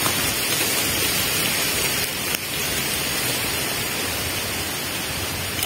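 Steady rushing of strong wind through the fronds of young oil palm trees.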